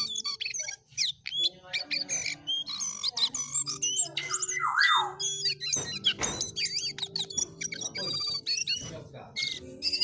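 Caged jongkangan singing vigorously: a rapid, unbroken stream of chirps and whistled notes that swoop up and down.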